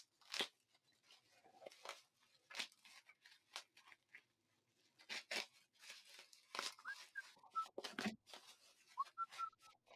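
Plastic packing wrap crinkling and tearing in short, irregular bursts as it is pulled off a beer bottle, with a few faint squeaks near the end.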